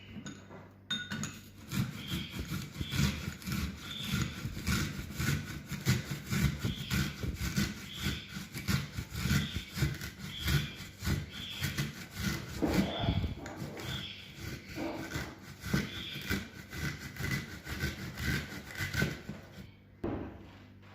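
An onion being grated by hand on a fine grater: quick, regular rasping strokes, a couple a second, that begin about a second in and stop near the end.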